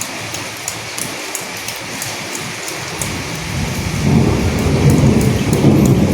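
Steady rain with fine drops ticking, joined about three seconds in by a low rumble of thunder that swells and grows louder toward the end.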